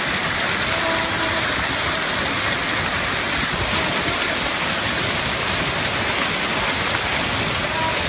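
Hailstorm: hail and heavy rain pelting the ground and pavement, a steady dense hiss with no letup.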